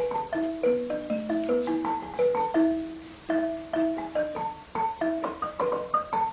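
Background music: a melody of quickly struck, pitched notes on mallet percussion, with several notes a second.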